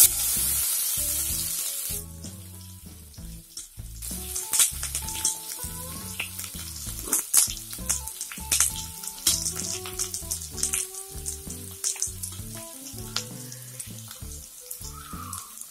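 Chopped onion dropped into hot oil with cumin and mustard seeds, sizzling: a loud burst of hiss as it hits the oil, dying down after about two seconds into steadier frying with scattered crackles.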